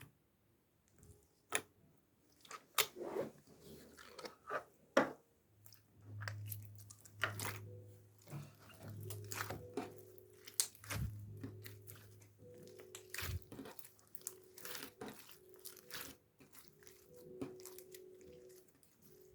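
Irregular crunching and clicking sounds at close range, with a faint low steady hum through the middle and faint steady tones in the second half.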